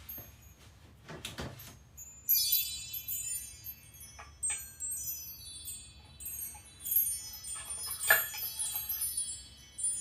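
Metal chimes ringing in clusters of many high, bright, overlapping notes, starting about two seconds in, with a louder stroke about eight seconds in. A brief rustle of handling comes just before.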